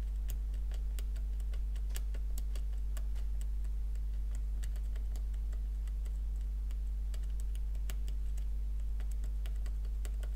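Fine metal tweezer tips tapping and scraping on the corroded legs of a small surface-mount logic chip, giving irregular light clicks, over a steady low hum.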